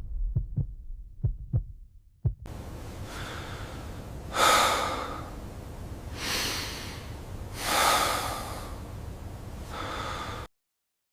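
A person breathing heavily: four long, hissy breaths about two seconds apart over a low steady rumble. These follow a few irregular low thumps in the first two seconds, and the sound cuts off suddenly near the end.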